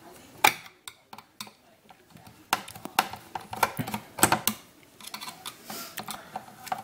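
Irregular small clicks and taps of a screwdriver working a screw out of an LGB Stainz model locomotive's plastic body, with the plastic parts knocking as they are handled; the sharpest clicks come about half a second in and just after four seconds.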